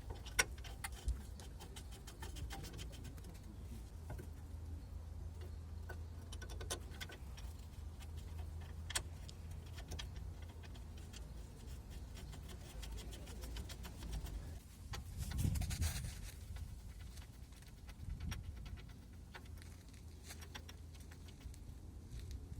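Metal hand tools clicking and clinking against steel parts during car front-suspension work, with runs of quick ticks and a louder scraping clatter about fifteen seconds in, over a steady low hum.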